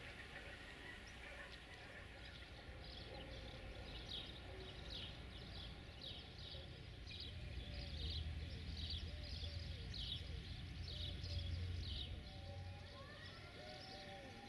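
Birds chirping outdoors: short high chirps repeating about once or twice a second, joined from a few seconds in by a quick run of lower calls. A low rumble swells in the middle, and rising call notes come near the end.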